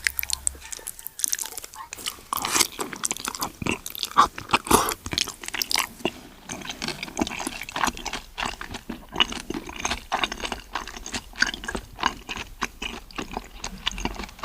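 Close-up mouth sounds of a person eating seafood: continuous chewing with quick crunches and wet smacking clicks, busiest a couple of seconds in.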